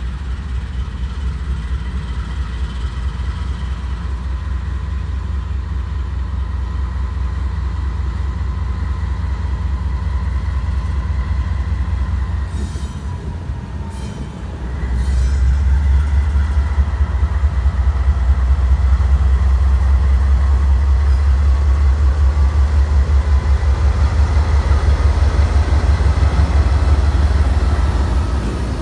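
Diesel-electric freight locomotives rumbling as they approach and pass at close range, with a steady whine over the engine sound. The rumble grows louder about halfway through as the locomotives come alongside.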